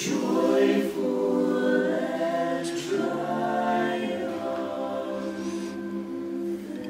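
Mixed choir of men's and women's voices singing a holiday carol a cappella in close harmony, holding long chords. The voices come in strongest at the start and ease off slowly.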